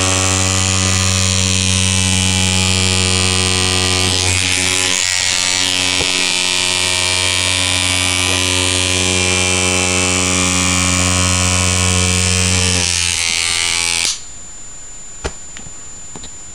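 Homemade scrub-brush bristle bot buzzing loudly and steadily as its vibration motor shakes the bristles against a hard floor. The buzz cuts off sharply about fourteen seconds in, followed by a single faint click.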